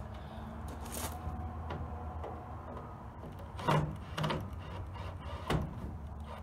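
Window glass and metal door frame of a 1971 Ford F250 knocking and rubbing as the replacement window is worked into its tracks inside the door: a faint click about a second in, then three sharp clunks in the second half.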